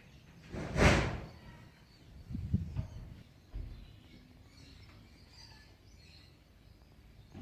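A gust of wind rushes over the microphone about a second in, followed by a couple of weaker gusts, with faint bird chirps in the background.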